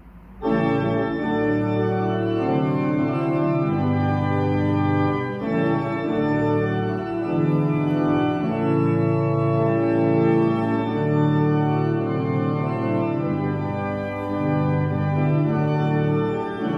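Church pipe organ starting up about half a second in and playing a slow piece of held, full chords that change every second or so.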